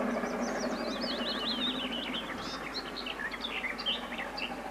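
A small songbird singing a rapid twittering song close by, over the steady distant sound of a steam locomotive working, the LNER A1 Pacific 60163 Tornado.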